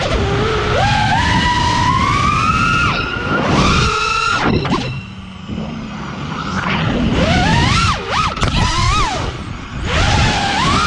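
FPV freestyle quadcopter's four Brother Hobby R6 2207 1800kv brushless motors and propellers on 6S whining, the pitch swooping up and down with each throttle punch and cut, with a dip in the middle as the throttle is chopped. Wind rushes over the onboard GoPro's microphone.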